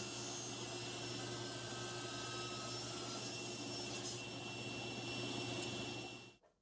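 SawStop Professional Cabinet Saw running steadily with its blade tilted to 45 degrees while a walnut box side is fed past it for a miter cut, a slight rise about four seconds in; the sound fades away near the end.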